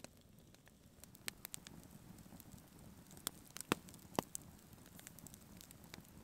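Wood campfire burning, crackling faintly, with several sharp pops scattered through it.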